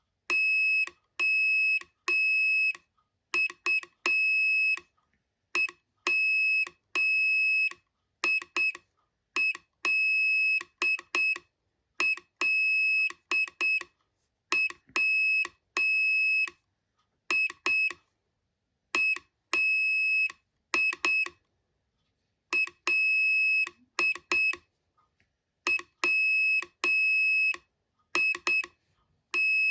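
Morse code sent at slow speed as a high-pitched beeping tone: short dots and longer dashes, with gaps between letters and words. A faint click marks the start and end of each tone.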